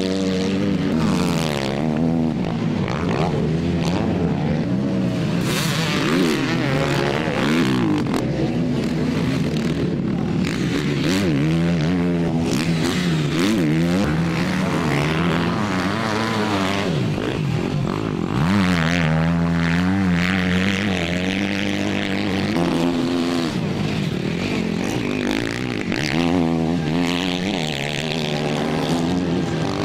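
Several motocross bike engines revving hard and easing off in turn, their pitch rising and falling over and over as the riders accelerate through the corners.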